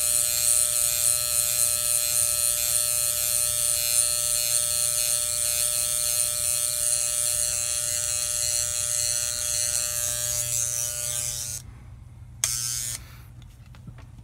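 Electric hair clippers buzzing steadily while lining up the hairline at the forehead, switched off near the end and followed by a short burst of noise.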